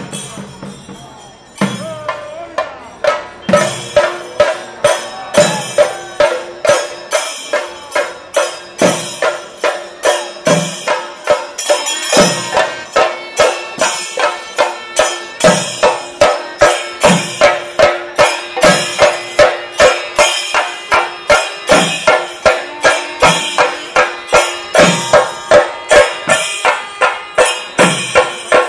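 Kerala temple festival percussion, drums with cymbals, playing a fast steady rhythm with a deeper drum stroke about every second and a half; it grows louder about a second and a half in.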